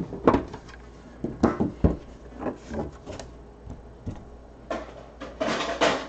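Handling of a Panini Immaculate Football trading-card box on a tabletop: a series of light knocks and taps as the lid comes off and is set down, then a brief scraping rustle near the end.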